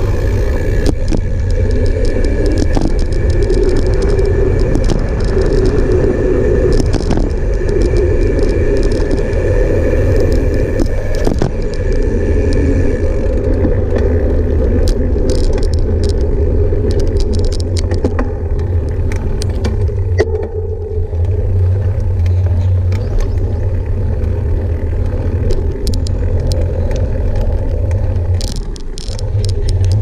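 A vehicle driving along a concrete road: a steady low engine and tyre rumble with scattered crackles and scrapes. The level dips briefly near the end.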